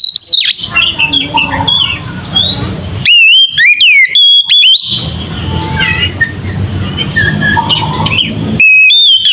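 Oriental magpie-robin (kacer) singing loudly: clear whistled notes that slide up and down, mixed with short chirps and chattering phrases. This is the full 'ngeplong' song used as a bait recording to rouse other magpie-robins.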